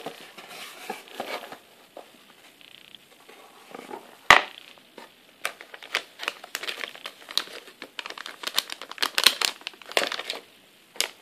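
Metallized anti-static bag crinkling and crackling as it is handled and pulled open, with one sharp click about four seconds in and dense crackling through the second half.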